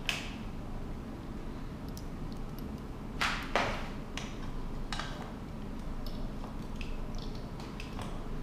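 Shimano Acera V-brake arms and their mounting hardware clicking and clacking as they are handled and slid onto the fork's brake posts. Scattered light clicks, with two louder clacks in quick succession about three seconds in.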